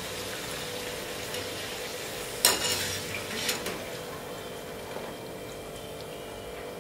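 Khari puris deep-frying in hot oil, a steady sizzle. About two and a half seconds in, a sharp clink of the wire skimmer against the steel pan as the puris are scooped out, with a lighter one a second later; after that the sizzle dies down.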